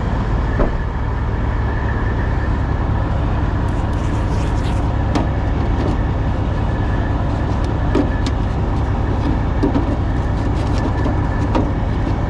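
Steady rumble of a vehicle engine idling, with a few light clicks and knocks of parts and tools being handled.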